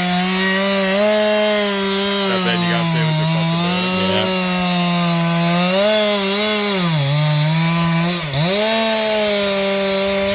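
Stihl two-stroke chainsaw held at full throttle and cutting into a large tree. Its pitch sags and recovers several times as the chain loads up in the wood, with a sharp short drop a little past eight seconds in.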